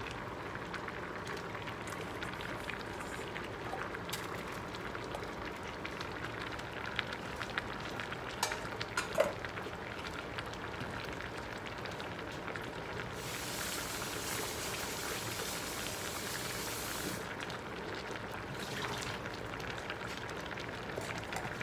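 Pot of vegetable broth boiling on a stovetop: a steady bubbling hiss, with a few light knocks and clicks in the first half as okra pods are dropped into the pan. The hiss turns brighter for a few seconds past the middle.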